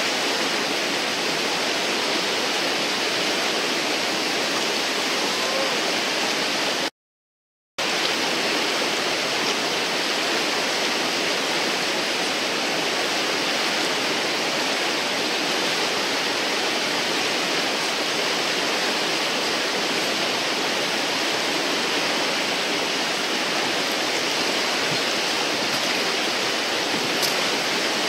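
Loud, steady rush of whitewater from a standing river wave in rapids. It cuts out completely for under a second about seven seconds in.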